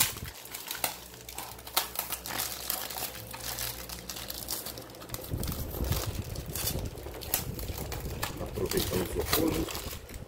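Packaging crinkling and rustling in irregular bursts as a parcel is unwrapped by hand.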